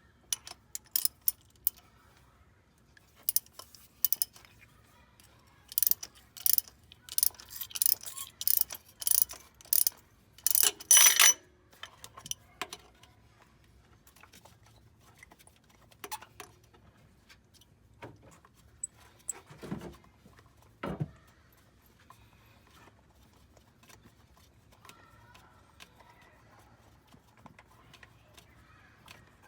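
Small metal parts and hand tools clinking and rattling in a quick run of sharp clicks for about the first twelve seconds, followed by a couple of duller knocks and a few scattered clicks.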